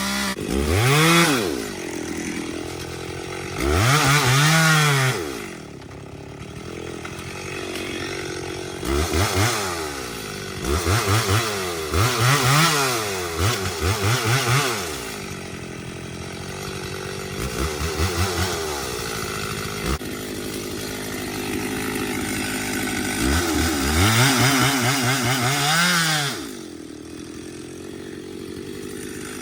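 Chainsaw engine revved up and falling back again and again, with short bursts about a second long. There are clusters of quick revs in the middle and near the end, and steady lower running in between.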